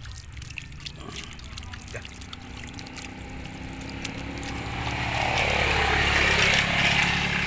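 Water poured from a plastic bottle, running over a person's hands and splashing onto pavement. The splashing grows louder from about halfway through. A steady low hum runs underneath.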